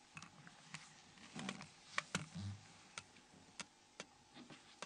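Faint, irregular clicks and light taps of a Nokia N93 flip phone's plastic housing and parts being handled during disassembly, the sharpest click about two seconds in.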